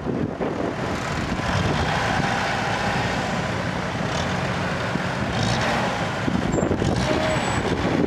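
Mercedes semi-trailer tipper truck's diesel engine running steadily as the truck moves slowly, with a few faint brief whistles near the end.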